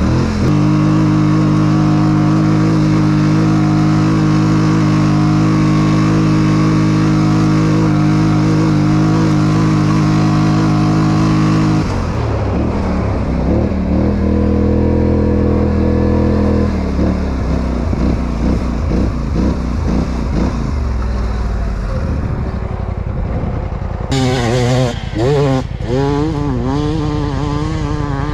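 Quad bike (ATV) engine running at steady revs for about twelve seconds. Then the revs change and wander, and near the end they rise and fall quickly as the throttle is worked.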